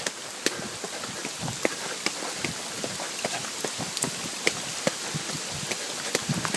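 Typhoon rain: a steady hiss broken by many sharp, irregular ticks of drops striking close to the phone's microphone.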